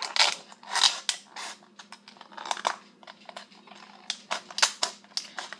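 Scissors snipping through a thin plastic water bottle, with the plastic crinkling and crackling between cuts in irregular sharp snips.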